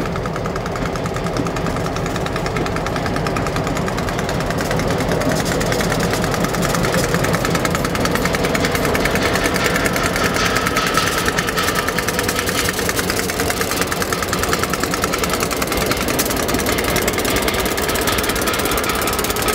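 Two Great Lakes Central diesel-electric locomotives rolling slowly through a grade crossing, their diesel engines running with a steady, rapid throb. The sound grows louder over the first several seconds as the units draw up, then holds as they pass.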